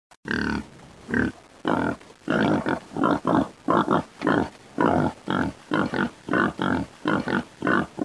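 A pig grunting over and over, short grunts about twice a second.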